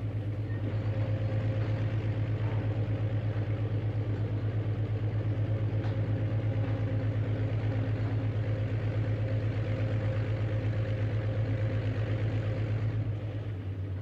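Recorded diesel engine sound of a backhoe excavator, played back by a DF Player mini through the model's small speaker: a steady running throb with a fast even pulse. It fades away near the end.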